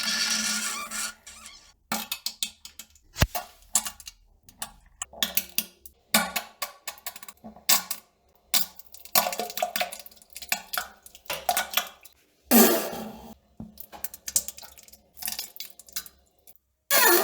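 A long string of short, irregular fart and sputtering poop sounds, some with a buzzing pitch, broken by brief silences.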